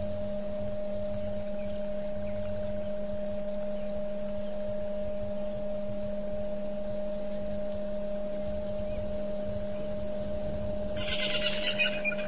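Steady low electrical hum with a fluctuating low rumble. About eleven seconds in comes a short bird call with a slightly falling whistled note.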